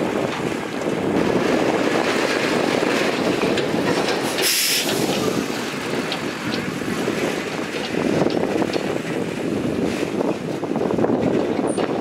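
Heavy diesel dump trucks running, a steady engine noise mixed with wind on the microphone, with a brief hiss about four and a half seconds in; in the second half a loaded tipper truck drives off over loose dirt.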